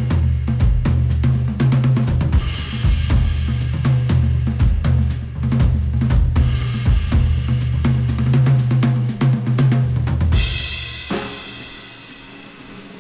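Music with a drum kit and a deep bass line, played back through headphones and picked up by microphones. About ten seconds in, a bright cymbal wash comes in, the bass and drums drop away, and a quieter passage follows.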